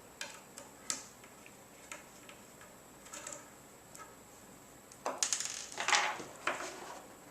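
Light clicks and taps as the plastic inner tube of a toy lightsaber's aluminium hilt is worked loose. About five seconds in come a couple of seconds of louder scraping and rattling as the plastic slides against the metal.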